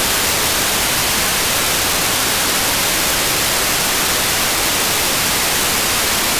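Steady hiss of an FM radio receiver with its squelch open and no signal: an SDR tuned to the ISS downlink on 145.800 MHz, giving only white noise while the station is not transmitting.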